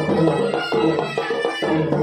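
Traditional Tamil temple-festival music: drums beat a fast, steady rhythm under a reedy wind instrument holding a melody.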